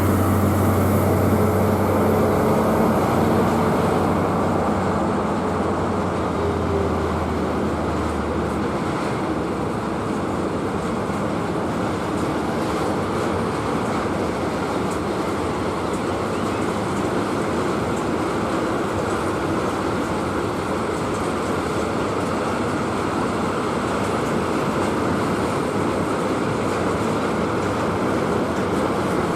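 Train passing at the head of a long consist: the diesel engine of the BB 60140 locomotive drones low for the first several seconds and fades away. After that the wagons roll past in a steady noise of wheels on rail.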